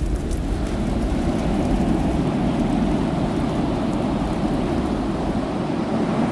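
Steady, low rushing sound of surf breaking on a shore, with a few faint crackles near the start.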